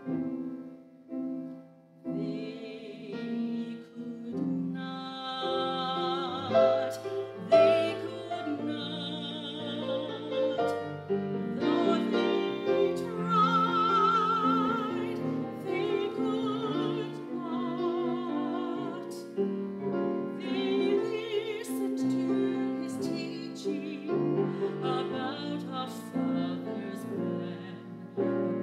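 A woman singing a solo accompanied by a grand piano. The piano plays alone for the first two seconds, then the voice comes in with long held notes and a wide vibrato.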